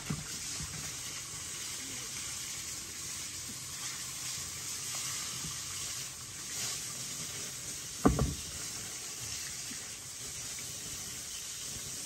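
Soft dripping and dabbing as a strip of food is dipped in a bowl of liquid and pressed into a metal bowl of flour, over a steady hiss. A single dull thump about eight seconds in is the loudest sound.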